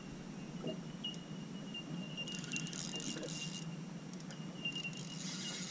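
Fishing reel ticking rapidly in two short spells, about two seconds in and again near the end, as line is worked against a hooked fish. A thin, steady high whine runs underneath.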